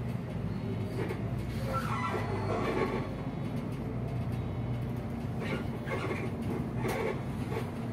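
City bus on the move, heard from inside the passenger cabin: a steady low engine and road drone.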